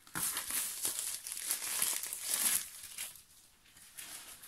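Thin plastic packaging crinkling and rustling as a small parcel bag is handled and opened by hand. It is busiest in the first two and a half seconds, then drops to a few quieter rustles.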